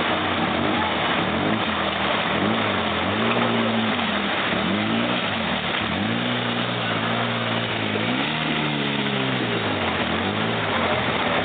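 ATV engines revving up and down over and over, the pitch climbing and dropping every second or two, over a constant rushing noise.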